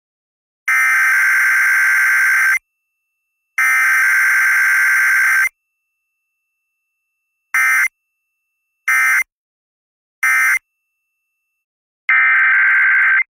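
Emergency Alert System SAME digital data tones: two long bursts of about two seconds each, then three short bursts a little over a second apart, the end-of-message code. Another long header burst starts near the end.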